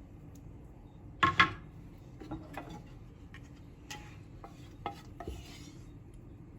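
Kitchen dishes and cutlery clinking: one loud ringing clatter about a second in, then a series of lighter clinks and a short scrape.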